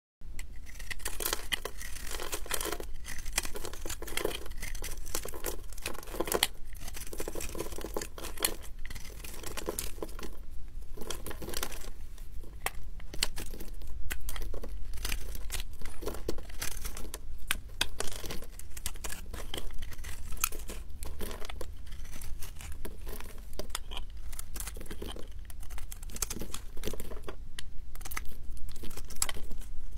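A snap-off utility knife blade shaving flakes off a ball of recycled soap made of pressed soap chunks: rough, crackly scraping strokes one after another, with a short pause about ten seconds in.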